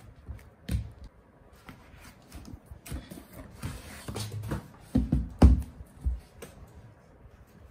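Cardboard shipping carton rustling and scraping as a boxed laptop is pulled out of it. The loudest sound is a dull thump about five and a half seconds in, as the heavy box is set down on a desk.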